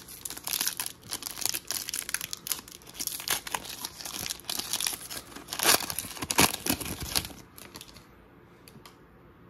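Plastic wrapper of a basketball trading-card pack being torn open and crinkled, with two sharper, louder tears a little past halfway. It stops about a second before the end, leaving only a few faint clicks.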